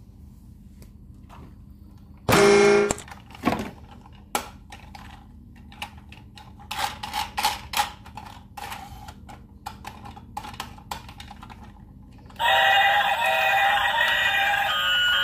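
Light plastic clicks and knocks from a battery-operated toy train being handled, with one short loud sound about two seconds in. About twelve seconds in, the toy's electronic music and sound effects start playing loudly and keep going.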